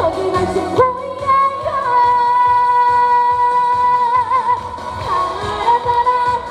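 A female trot singer sings live over a backing track with a steady beat. About a second in she holds one long note for some three seconds, ending with a vibrato, then goes back to the moving melody.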